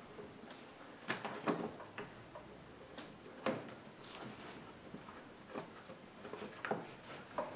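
Scattered light clicks, knocks and rubbing as a rubber upper radiator hose is worked by hand onto its fitting, with a spring clamp held in pliers close by. The clicks come at irregular moments, a few of them sharper.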